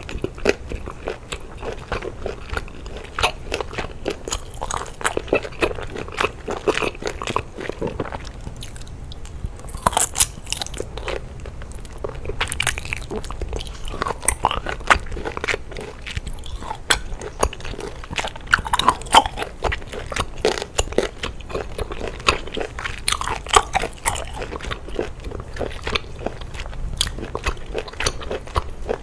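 Close-miked biting and chewing of a large octopus tentacle, with many short, wet mouth clicks throughout.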